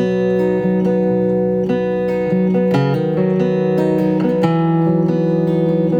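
Martin LXK2 Little Martin travel acoustic guitar played with light fingerpicking, single notes ringing on over one another as the song's intro.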